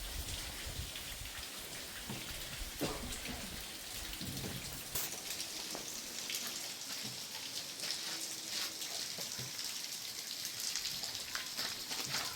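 Steady rain falling, with many separate drops ticking on nearby surfaces.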